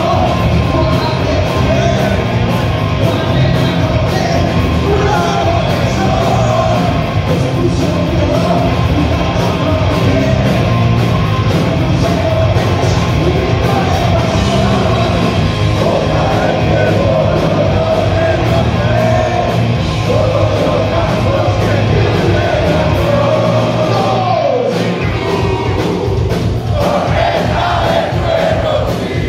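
Heavy rock band playing live, heard from the audience in a large hall: distorted electric guitars, bass and drum kit under a sung vocal. Near the end the low end drops out for a moment and the crowd yells and sings along.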